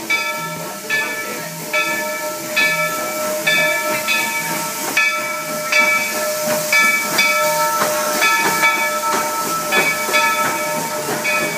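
Steam locomotive's bell ringing steadily, a little more than once a second, as the locomotive pulls into the station, over a steady hiss of steam.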